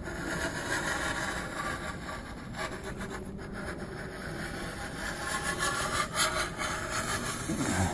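Steel putty knife blade scraping as it is drawn along drywall and across a metal drywall corner bead, with a few light clicks. The knife is checking for high spots where the bead sticks up off the wall.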